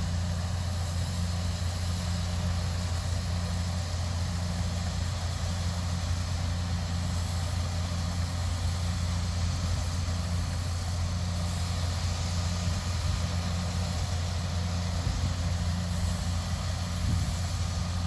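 Combine harvester's diesel engine running steadily while it unloads shelled corn into a grain cart: an even low drone with a faint regular pulse, unchanging throughout.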